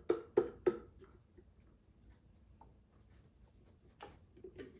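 A quick run of sharp taps and knocks on an upturned plastic blender jar as thick hummus is shaken out into a glass bowl, then a quiet stretch with a few more knocks near the end.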